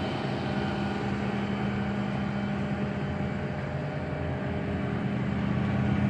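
Flatbed tow truck's engine idling, a steady low hum that does not change.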